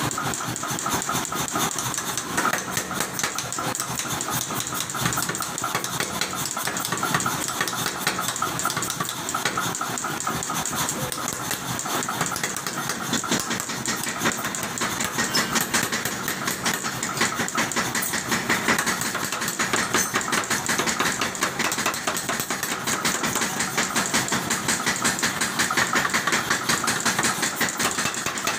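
A 50 kg pneumatic power hammer pounding a red-hot steel hoe blank in rapid, steady blows, drawing out and shaping the hot metal.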